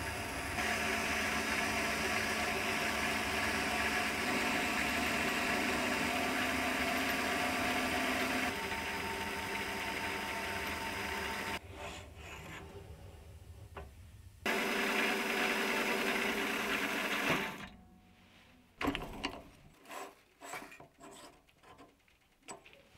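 Mini lathe running steadily while a reamer in the tailstock chuck cuts into a part held in the ER collet. About three quarters of the way through the running stops, leaving a series of light metallic clicks and taps as the collet and part are handled by hand.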